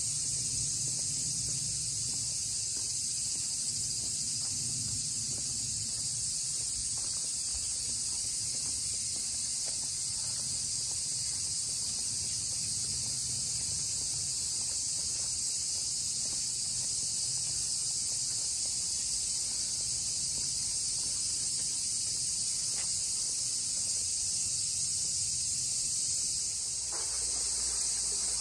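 Steady, unbroken high-pitched buzz of a summer insect chorus.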